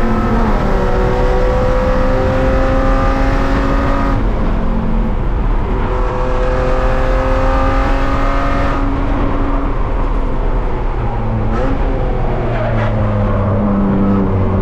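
BMW E36 race car's engine heard from inside the stripped cabin, pulling hard with its pitch climbing steadily. The pitch drops back about four seconds in, climbs again, then falls off after about nine seconds to a lower note.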